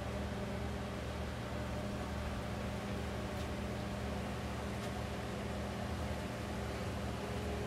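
A steady low mechanical hum over an even hiss, unchanging throughout.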